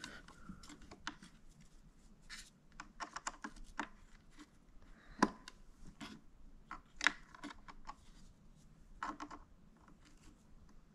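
Faint, irregular plastic clicks and scrapes as side brushes are pushed onto their mounts on the underside of a bObsweep PetHair Vision Plus robot vacuum, with two sharper clicks about five and seven seconds in.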